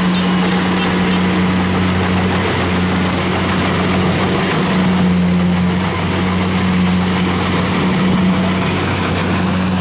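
Kubota DC-70 rice combine harvester's diesel engine running steadily under load while it cuts and threshes rice, a deep even hum under the clatter and hiss of its machinery.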